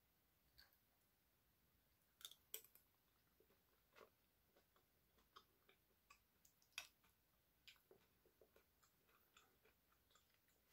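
Faint mukbang eating sounds: quiet chewing of kimchi stew with scattered soft clicks of cutlery against the pot, the sharpest about two and a half seconds in and again near seven seconds.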